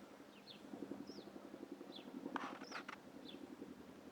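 Distant Chinook tandem-rotor helicopter overhead, its rotor blades beating in a fast, even, faint pulse. Short high bird chirps come several times over it.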